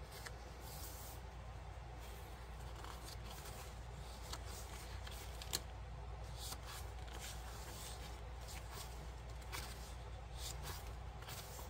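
Paper pages of a thick handmade junk journal being turned and handled: soft scattered rustles and crinkles, with one sharp tick about five and a half seconds in, over a low steady hum.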